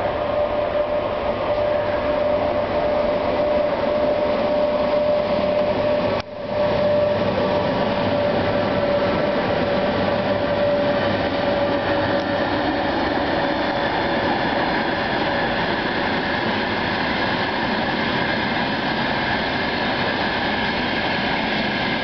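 Freight train passing at speed: a Class Sr1 electric locomotive followed by a long line of tank wagons rumbling and clattering over the rails. A steady tone runs over the rail noise in the first half and fades, and the sound drops out for a moment about six seconds in. From about halfway the wagons roll past close, with several thin, steady high tones over the rumble.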